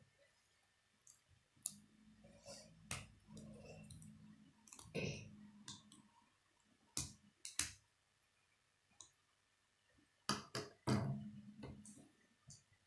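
Plastic K'nex construction pieces clicking and snapping together by hand as gears, rods and connectors are fitted into a frame, in irregular sharp clicks. A low hum comes and goes twice.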